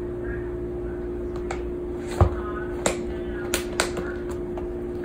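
Sharp clicks and taps of a Bengal cat's claws and teeth on a Nike running shoe as it wrestles it, four in quick succession between about two and four seconds in, over a steady low hum.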